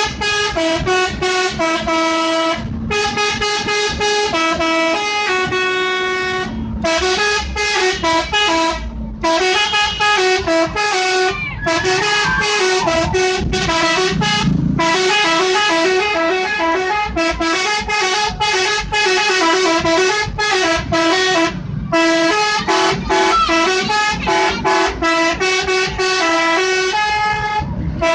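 Bus 'telolet' multi-tone musical horn playing quick tootling melodies, the notes switching several times a second. It is sounded in long runs with a few short breaks.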